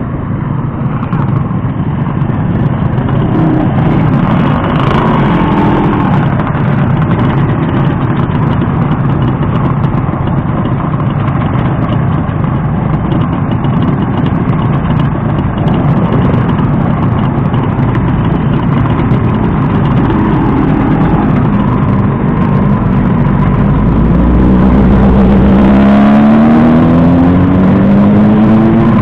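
Motorcycle engine running under way, with a steady rushing noise over it. Near the end the engine pitch climbs as it accelerates.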